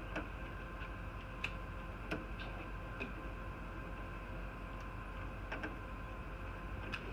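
Light, irregular metallic clicks of a small screwdriver working at the screws and metal faceplate of a Cisco ISR 4351 router, over a steady low hum.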